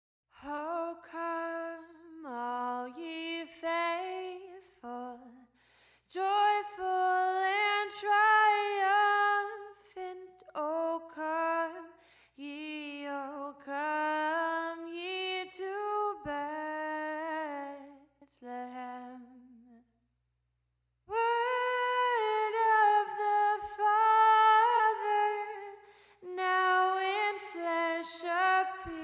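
A woman singing a slow melody solo and unaccompanied, in long held phrases, with a short break about two-thirds of the way in.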